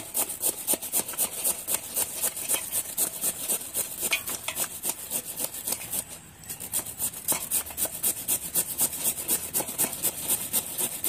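Peeled ash gourd (white pumpkin) rubbed up and down a handheld flat steel grater resting in a steel plate: rapid scraping strokes, about four a second, with a short pause about six seconds in.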